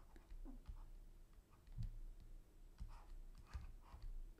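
Faint, scattered clicks and a few soft low taps of a stylus writing on a tablet.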